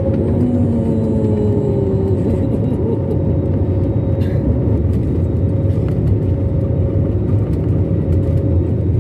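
Steady engine rumble and hum of an Airbus airliner heard from inside the passenger cabin, with a constant tone riding over the low rumble.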